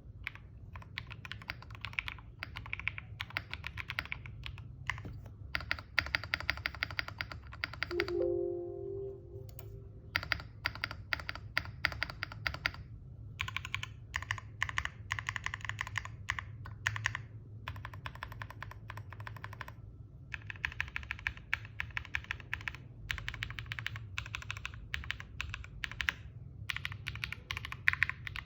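Typing on a Sela 70 mechanical keyboard with SWK Yang switches, an aluminium plate and Cherry-profile keycaps: runs of fast keystrokes broken by short pauses. A brief tone sounds about eight seconds in.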